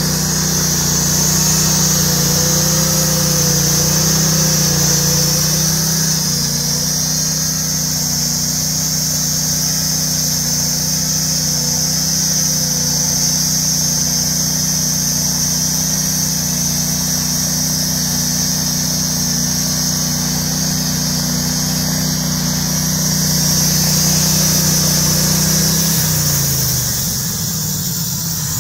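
Norwood portable bandsaw mill running under load, its small engine holding a steady speed while the band blade saws through a log. About three seconds before the end the engine's pitch slides down to a lower speed as the cut finishes.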